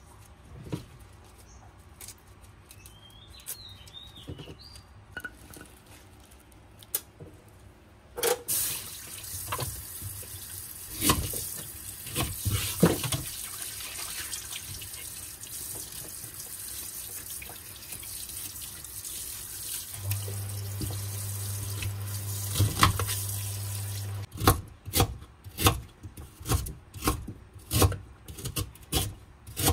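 A kitchen tap runs into a stainless steel sink for about sixteen seconds, with a low hum joining it near the end of the flow; faint bird chirps come before it. Then a kitchen knife chops on a wooden chopping board, about two strokes a second.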